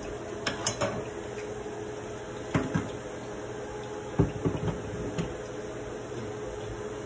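Kitchen dish-and-utensil clatter: a few scattered knocks and clinks of a glass bowl, plate and utensils as fried plantain slices (tostones) are handled and set into the bowl. The sharpest knock comes about four seconds in, over a steady hum.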